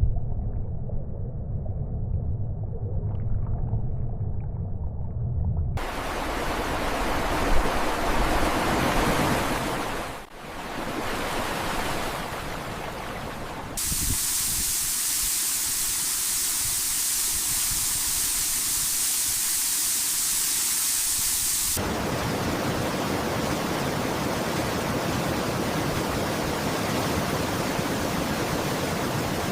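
Rushing floodwater: a steady low rumble that cuts to a loud, broad rushing hiss, which shifts abruptly in brightness several times.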